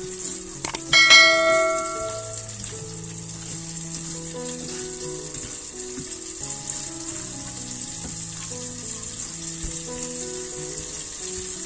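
A single bell-like ding, a subscribe-button notification sound effect, rings out about a second in and fades over about a second. Under it are soft background music and a steady hiss.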